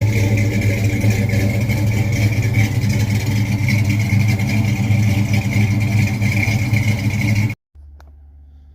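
An engine running loudly and steadily, cutting off abruptly near the end.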